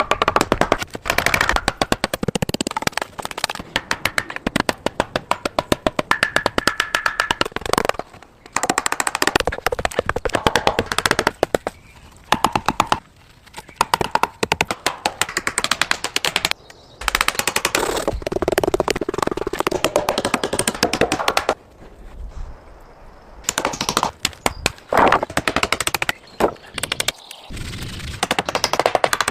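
Rapid, dense runs of wooden knocks and taps, many a second, broken by short pauses, like fast-forwarded hammering and chopping on timber.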